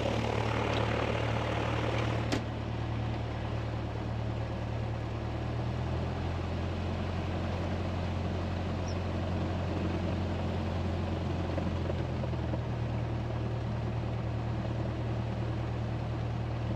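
A Cessna's piston engine idling steadily while the plane holds on the runway before takeoff. There is a single sharp click about two seconds in.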